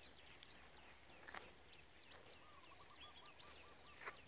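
Near silence: faint outdoor ambience by a pond, with distant birds chirping now and then and a short run of quick, evenly spaced calls about halfway through.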